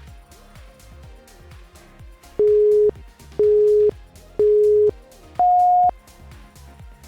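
Workout interval-timer countdown: three short beeps a second apart, then a single higher beep, signalling the switch to the next exercise. Upbeat background music plays quietly underneath.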